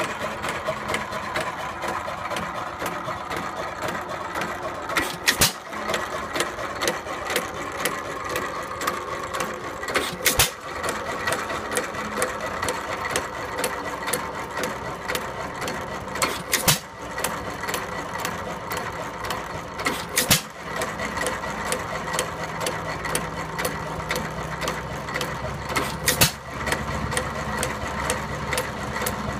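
1919 Hercules 3HP Model E hit-and-miss stationary gas engine running: a sharp crack about every five to six seconds, five in all, over a steady rapid clatter of the engine's moving parts.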